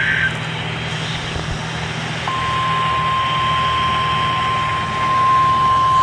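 The tail of a SAME digital header burst, a rapid warbling data screech, cuts off at the start. About two seconds in, the NOAA Weather Radio 1050 Hz warning alarm tone begins, one steady pure tone over a low hum, announcing an incoming warning.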